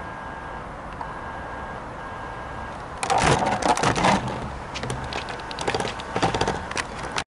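A low, steady rumble from the distant approaching freight train's diesel locomotives. About three seconds in, loud crackling and rustling handling noise on the microphone as the camera is moved, full of sharp clicks, cutting off suddenly near the end.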